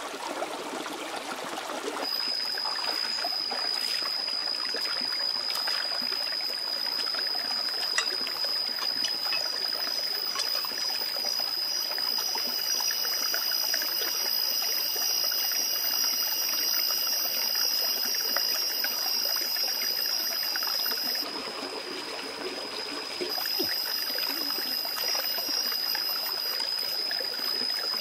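Shallow rocky forest stream trickling over stones. A steady high-pitched whine comes in about two seconds in and runs alongside, with a short break about three quarters of the way through.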